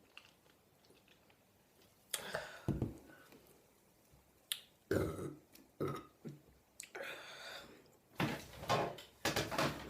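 A woman burping repeatedly, a series of separate belches starting about two seconds in and coming close together near the end, gas brought up from drinking Sprite.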